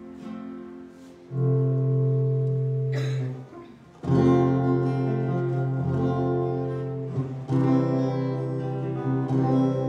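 Instrumental accompaniment music for a worship song: held chords that come in softly, grow louder about a second in, and change every few seconds, with a brief break around the middle.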